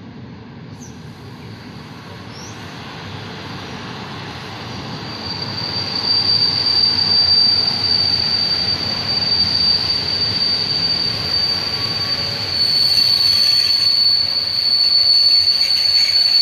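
Passenger train rolling into the station: its rumble grows louder over the first few seconds, and from about a third of the way in a steady high-pitched squeal from the steel wheels on the rails rides over it.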